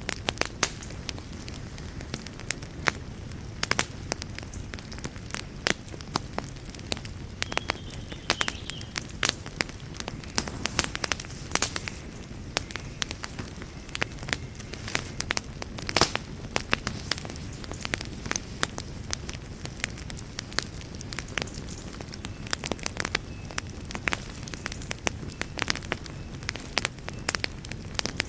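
Wood fire burning in a fireplace: a steady low rumble of flames with frequent irregular crackles and occasional louder pops.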